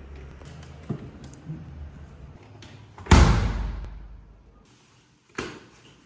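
Refrigerator door shutting with a loud thud about three seconds in, after a few small knocks as things are moved inside the fridge. A second, lighter knock comes near the end.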